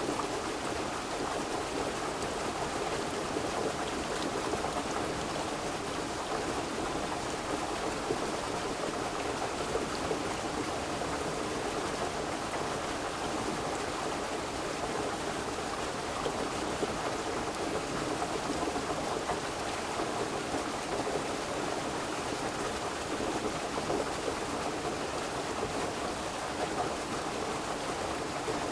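River water flowing in a steady, even rush without pause.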